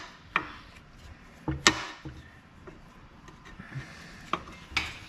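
A few sharp knocks and clacks of hand tools and metal parts being handled, the loudest about one and a half seconds in, with quiet shuffling between them.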